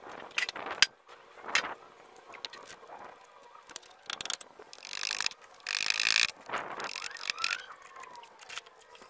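Intermittent clicks, knocks and short metallic rattles of tools and chainsaw-mill parts being handled; the chainsaw is not running.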